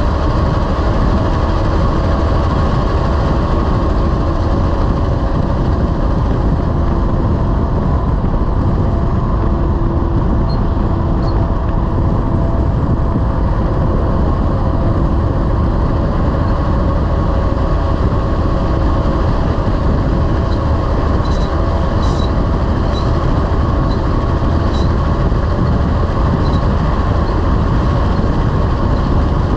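Heavy-haul semi truck's diesel engine running steadily under way, with constant road noise as a loud low rumble; a few faint clicks or rattles come in near the end.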